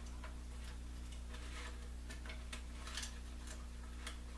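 Faint, scattered clicks and light rattles of wires being pulled through the chassis of a Kenwood TS-940 radio, over a steady low hum.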